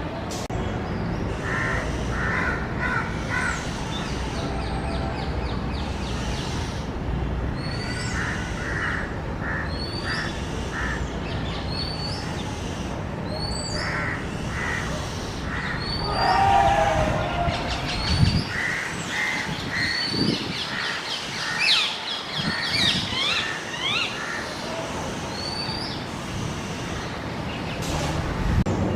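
Oriental magpie-robins calling: a short, high, upward-flicked note repeated about once a second, mixed with bursts of rapid, harsh rasping notes. There is a louder tangle of sweeping calls a little past the middle.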